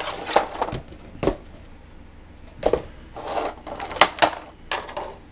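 A cardboard figure box being slid open and a plastic packaging bag crinkling as it is handled, with scattered taps and clicks.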